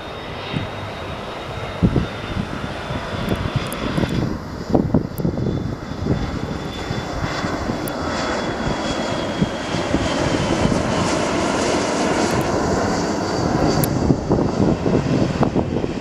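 McDonnell Douglas MD-80-series airliner on landing approach, its rear-mounted Pratt & Whitney JT8D turbofans passing low overhead: a dense jet rumble that grows louder toward the end, with a high whine that slowly falls in pitch.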